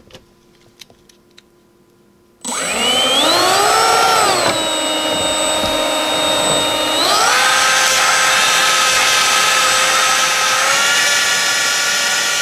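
Faint clicks, then a small brushless motor whines up to speed about two and a half seconds in. It drops back about two seconds later, rises again and runs steadily, stepping up once more near the end as the throttle changes.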